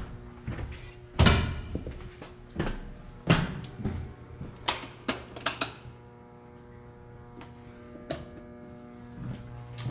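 A run of sharp knocks and clacks from doors, latches and fittings being handled aboard a steel ship, ending about six seconds in. A steady pitched hum with overtones carries on after.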